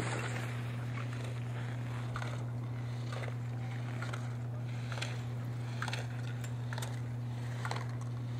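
A slalom skier's skis scraping hard snow through quick turns and knocking the gate poles aside, short scrapes and knocks about once a second. A steady low hum runs underneath.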